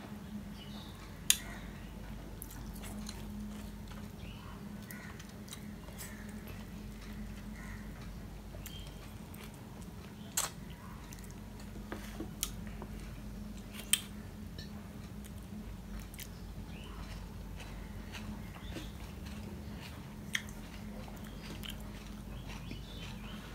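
Close mouth sounds of eating by hand, sucking on a piece of lime and chewing, over a steady low hum. A few sharp, loud clicks of fingers and food against a steel plate stand out every few seconds.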